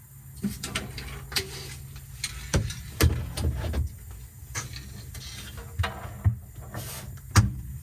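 Irregular clicks and knocks of things being handled and set down, with a few heavier thumps about three seconds in and again near the end.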